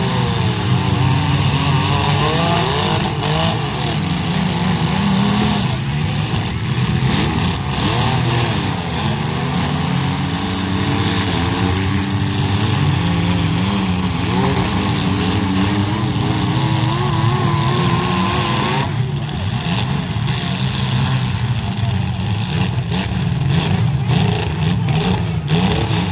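Engines of several demolition-derby compact cars revving up and down over one another. Sharp metal knocks come in the last several seconds.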